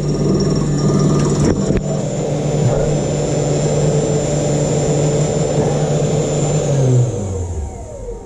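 Homemade CNC's spindle motor running steadily while milling aluminium, with a couple of sharp knocks about a second and a half in; near the end the spindle is shut off and winds down, its pitch falling as the noise fades. It was stopped because the aluminium workpiece had got too thin to keep milling.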